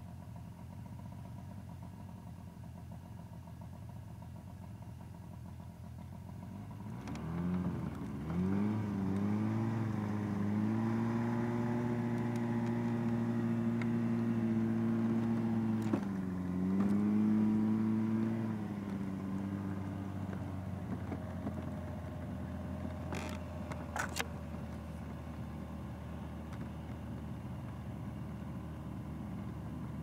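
Buran snowmobile's two-stroke engine ticking over quietly, then revving up about seven seconds in and pulling steadily under throttle, with a brief dip in revs, before easing back to a lower steady run for the rest of the time. A couple of sharp knocks sound in the second half.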